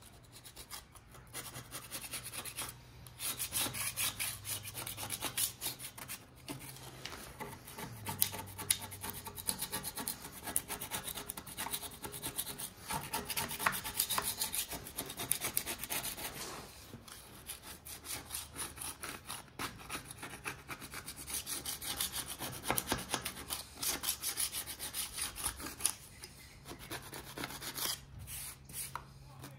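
A hand scraper blade scraping caked rust and grime off the rusty metal frame of an old hand-operated metal shear, in runs of quick rasping strokes broken by brief pauses.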